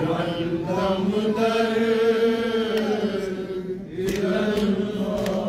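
Man's voice chanting a Kashmiri noha, a mourning elegy, drawing out long held notes. The voice breaks off briefly just before four seconds in, then goes on.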